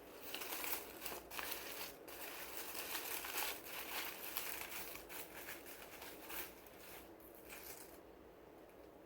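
Lime being grated for zest: a run of uneven scraping strokes that stops about eight seconds in.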